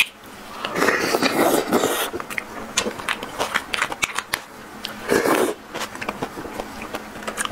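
Close-miked eating sounds: a plastic spoon scraping crab roe and meat from a crab's shell, with wet mouth sounds and many small clicks. There are two louder, longer stretches, one about a second in and another near five seconds.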